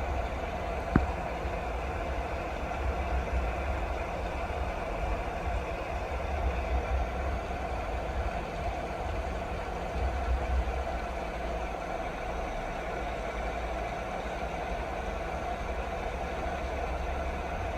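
Steady rain noise with a low rumble underneath, and a single sharp click about a second in.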